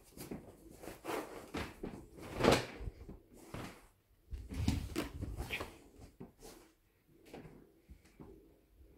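Irregular knocks and thumps, the loudest a sharp one about two and a half seconds in, then a cluster of dull thumps a couple of seconds later.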